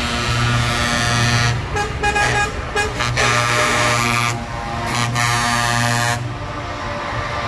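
Air horns of trucks sounding repeatedly over the diesel engines of the passing lorries: long held blasts broken by a few short toots.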